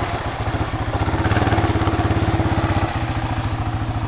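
ATV engine, breathing through newly fitted snorkels, running at low speed as the quad wades fender-deep through floodwater. It gets louder about a second in and eases back near the three-second mark, still firing steadily.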